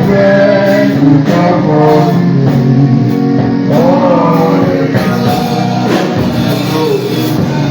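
Gospel music with a singer and guitar, a steady beat under it.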